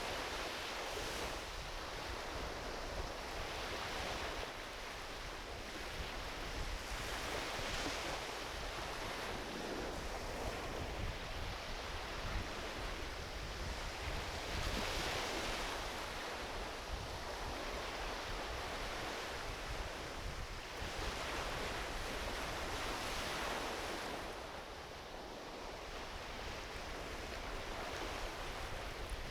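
Small ocean waves washing onto the beach, swelling and receding every few seconds, with a low rumble of wind on the microphone.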